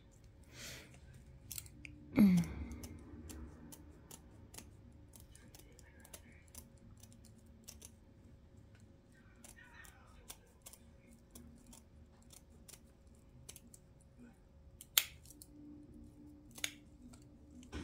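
Scissors snipping through silver deco mesh around a tinsel pipe-cleaner frame: a scattering of short, sharp clicks and cuts, with a louder thump about two seconds in and two louder snips near the end.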